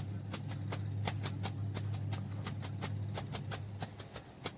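Cupped hands clapping on a patient's back in chest physiotherapy percussion, a quick even run of pats about five a second, done to loosen phlegm in the lungs. A steady low hum runs underneath and drops away near the end.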